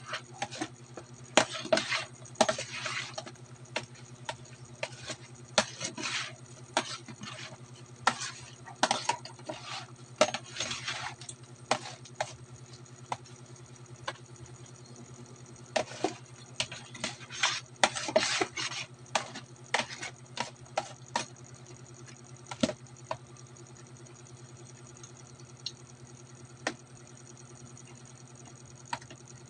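A metal slotted turner stirring and turning pieces of marinating oarfish in a basin: repeated clinks and scrapes of metal against the bowl and the wet fish. They come in busy bursts for about the first twenty seconds, then thin out to occasional single clicks. A steady low hum runs underneath.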